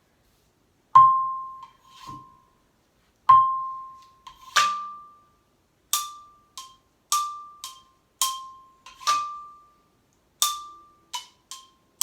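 Xylophone bars struck with mallets, about a dozen single notes at an unhurried, uneven pace, each ringing briefly. Two neighbouring high notes are alternated, and the first strikes are the loudest.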